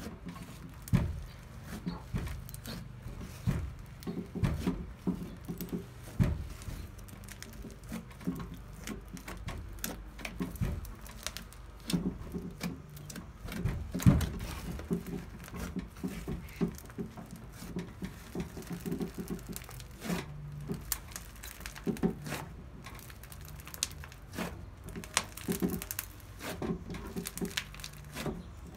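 Hands kneading, squeezing and folding a large lump of mixed slime on a wooden table: irregular wet squishes with many small pops and clicks.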